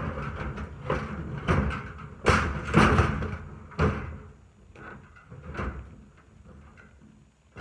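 Caged plastic IBC totes being shoved into place on a flatbed trailer: a series of knocks and thumps, the loudest a cluster about two to three seconds in and another near four seconds, then fewer and softer.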